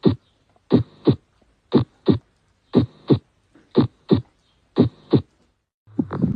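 Heartbeat: double 'lub-dub' thumps, about one beat a second and evenly paced. Near the end a faster, busier run of beats over a low hum starts.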